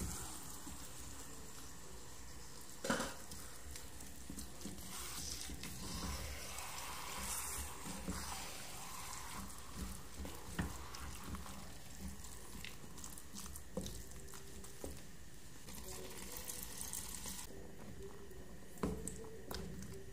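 Wooden spatula stirring thick mung bean stew in a clay pot, with scraping and occasional knocks against the pot, the loudest about 3 seconds in, over a steady sizzle from the cooking.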